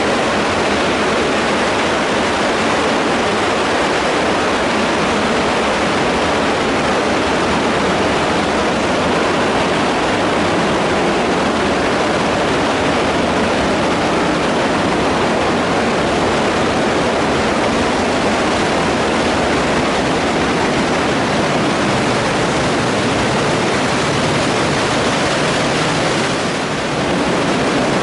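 Stormwater rushing steadily along a concrete storm sewer pipe during a summer downpour, heard from inside the pipe. It is loud and unbroken, dipping briefly near the end.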